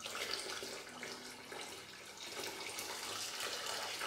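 A steady stream of water pouring and splashing into a ceramic bowl of uncooked basmati rice, filling it to wash and soak the grains.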